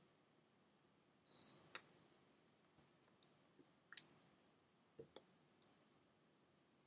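Near silence broken by a few faint, sharp clicks and taps, the loudest about four seconds in, as ringed hands knock together and brush the face.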